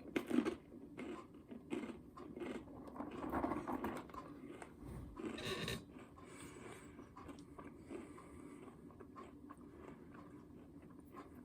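A person biting into a peanut butter brownie filled pretzel nugget and chewing it. There is a sharp bite just after the start, then irregular chewing that grows fainter after about six seconds.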